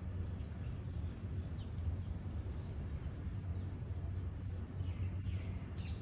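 Steady low outdoor background rumble with a few faint high chirps of small birds, and a thin high steady note from about two to five seconds in.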